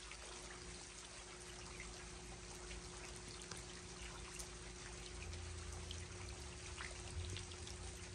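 Steady rain with water trickling and running, scattered drops ticking throughout, over a faint steady hum.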